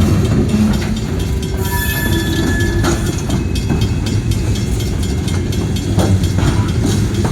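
Train rolling past: a steady heavy rumble of railroad cars with a few sharp clanks and a brief high squeal of wheels about two seconds in.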